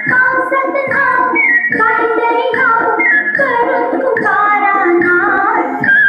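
A song playing: a high voice sings a melody with sliding notes over instrumental backing.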